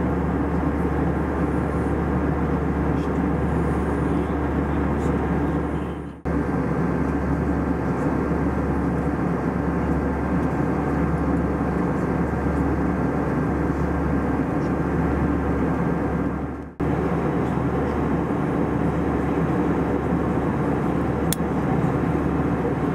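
Steady cabin drone inside an Airbus A320-232 in flight, from airflow and engine noise, with a low hum underneath. The sound dips out briefly twice, about six seconds in and again about seventeen seconds in, where the recording is cut.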